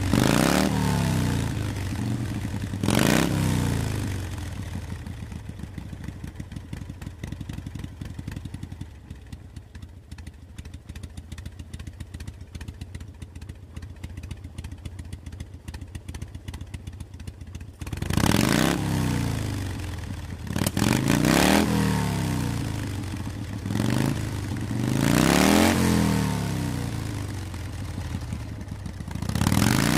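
Motorcycle engine under way, revving up and down several times as the pitch climbs and drops. A quieter, steady stretch of low, even engine pulsing comes in the middle.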